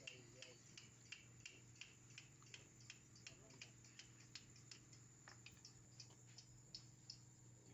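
Faint, regular ticking, about three ticks a second, over a steady low hum.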